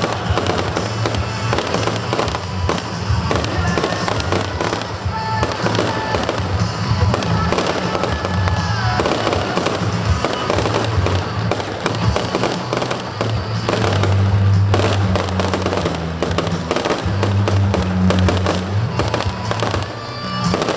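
Aerial fireworks going off in a dense, unbroken run of bangs and crackles.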